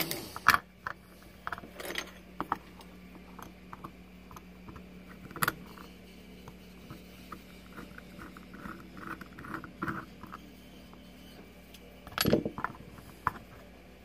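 Scattered small metal clicks and clinks of a pin-tumbler lock being worked with its key while the cap is taken off the cylinder, with a louder knock and clatter about twelve seconds in.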